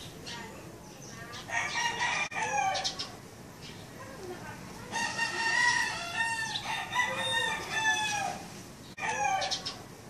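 Roosters crowing: a crow about a second and a half in, a longer run of crowing from about five to eight seconds, and another crow starting near the end.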